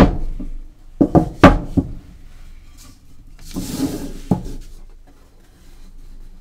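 Wooden knocks and a scraping rub as a book block between its boards is handled and set into a wooden book press: a sharp knock at the start, a quick cluster of knocks about a second in, then a short scraping rub ending in one more knock.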